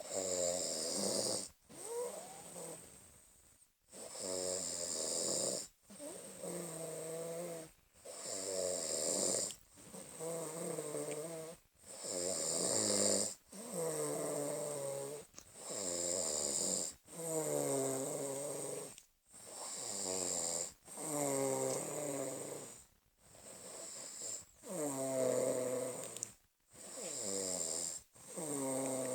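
A person snoring steadily in sleep, one snore about every two seconds, each lasting about a second and a half and falling in pitch.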